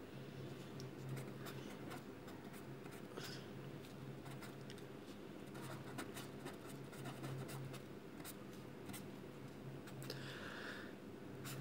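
Marker pen writing on paper: faint scratchy strokes and small taps of the tip as figures are written, over a faint steady low hum.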